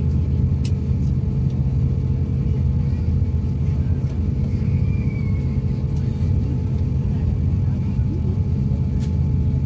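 Steady low rumble and hum of an airliner, heard inside the cabin while it taxis, its jet engines running at low power. A couple of faint clicks sound about a second in and near the end.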